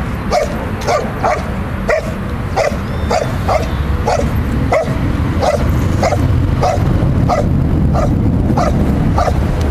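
Belgian Malinois barking at the helper in the blind in an IPO bark-and-hold, sharp barks coming steadily at about two a second.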